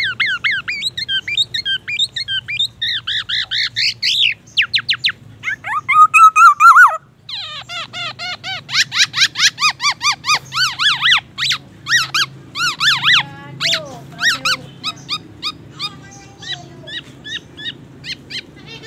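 Black-naped oriole singing a fast, varied song of short sweeping whistled notes. A louder, denser phrase with a held note comes about six seconds in, and the song then runs on in quick repeated notes.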